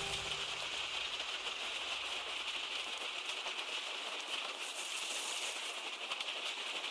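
Steady hiss of water spraying and draining over freshly washed gravel, with a fine crackle of wet stones. There is no low machinery rumble.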